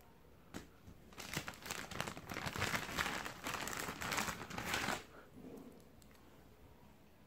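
Clear plastic bag crinkling and crackling as hands handle it, a dense stretch lasting about four seconds, preceded by a single click.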